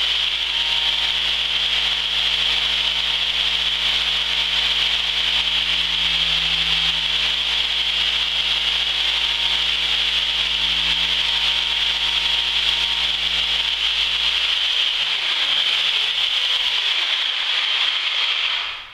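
Reciprocating saw fitted with a diamond grit blade, running steadily and grinding through a glass block window. Its motor note wavers in the last few seconds, and the saw stops near the end.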